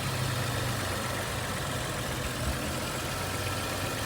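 BMW 335i's N55 turbocharged straight-six engine idling steadily, on a newly fitted serpentine belt, tensioner and idler pulleys that replaced a squeaking set. A brief light tap sounds about two and a half seconds in.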